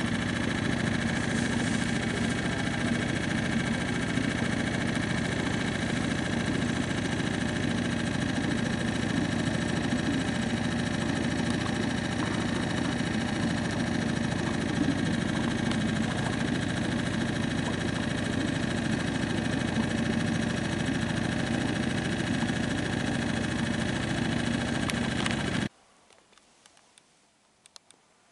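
Boat motor running steadily at a constant pitch, cutting off abruptly near the end; after it only a few faint ticks remain.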